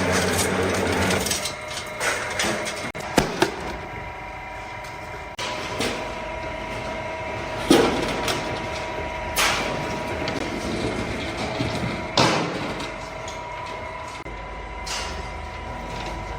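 Workshop noise: a machine's steady hum sets in about five seconds in, with scattered sharp knocks, the loudest about three, seven and a half and twelve seconds in.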